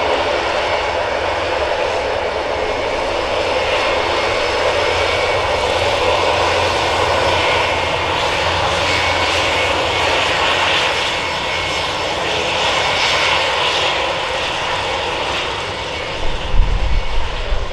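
Airbus A400M Atlas's four TP400 turboprop engines running at taxi power, a steady loud drone with a high whine over it. Near the end a gusty low rumble buffets in and the level jumps unevenly.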